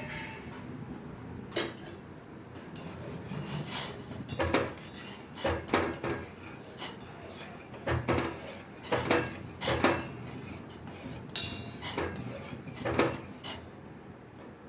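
Spoon clinking and knocking against a small cooking pan, a dozen or so irregular strikes and scrapes, as jaggery is added and the kashayam is stirred.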